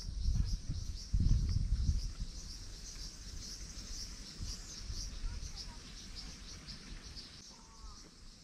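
Insects chirping steadily in a high, finely pulsing chorus, with a loud low rumble on the microphone during the first two seconds.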